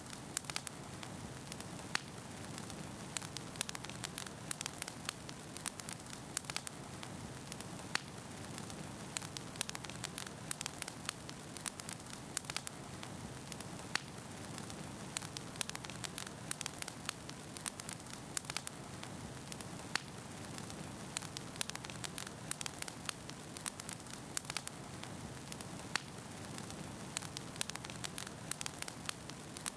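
Fire crackling: many sharp pops and snaps over a steady hiss.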